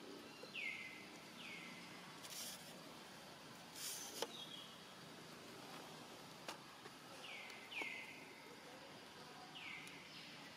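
Quiet forest ambience: a steady hiss with short calls, heard about five times, each sliding down in pitch, plus a couple of faint clicks and rustles.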